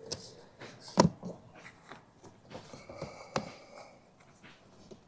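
A few short knocks and clicks, the loudest about a second in and another a little after three seconds in.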